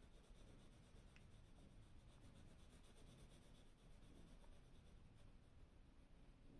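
Near silence, with faint scratching of a graphite pencil on smooth Bristol paper as small shading strokes are made.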